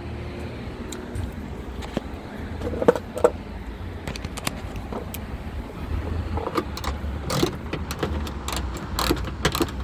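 Hand tool tightening the screws of a tailgate latch assembly: scattered small metal clicks and taps, a couple about three seconds in and then coming thick and fast in the second half, over a steady low hum.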